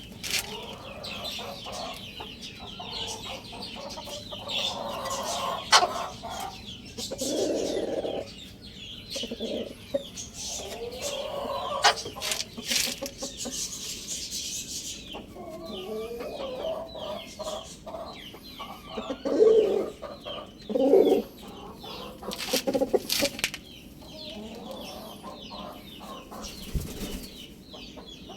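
Chickens clucking in short, repeated bursts over a steady chorus of high, thin chirping, with a few sharp clicks and knocks among them.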